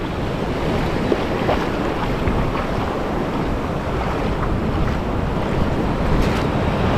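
Shallow surf washing and foaming in a steady rush, with the onshore sea breeze buffeting the microphone.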